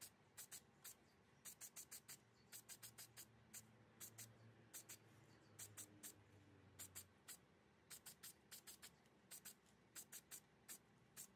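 Quiet, quick puffs of spray primer hissing onto a metal trolley-jack part: about thirty short bursts in irregular clusters, with brief pauses between them.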